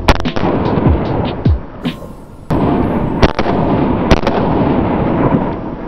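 Pistol shots from a compensated 9mm handgun, sharp separate reports with a quick pair near the start and another pair about four seconds in, over background music.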